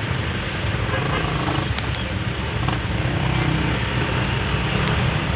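Idling engines in stopped traffic: a steady low engine hum with road noise and a few faint clicks.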